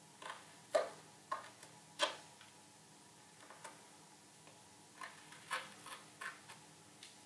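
Light, irregular clicks and taps, about ten in all, from an artist working by hand at a board on the wall.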